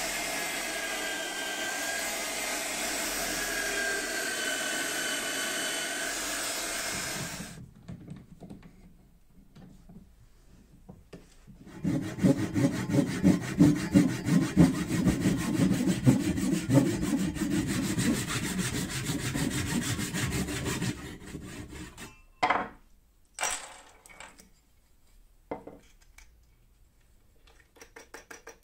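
A drill press motor running as it drills into a wooden dowel, stopping about seven seconds in. After a quiet pause, a hand saw cuts a slot into the end of the dowel in a run of quick, even back-and-forth strokes lasting about nine seconds, followed by a few sharp knocks.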